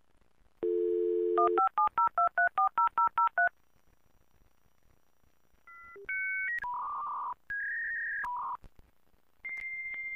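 Telephone dial tone, then a quick run of touch-tone (DTMF) digits being dialed. After a pause comes a series of electronic beeps and steady tones, ending in a long high tone.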